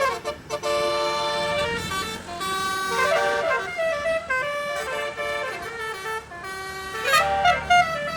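Multi-trumpet telolet bus air horn, an 18-trumpet, 18-note set, playing a quick tune of stepped notes, often several sounding together, loudest near the end.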